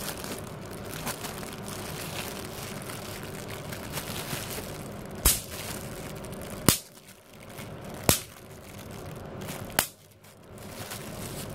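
Bubble wrap being squeezed between fingers and thumbs: the plastic crinkles steadily, then four sharp pops of bursting bubbles come in the second half, about a second and a half apart.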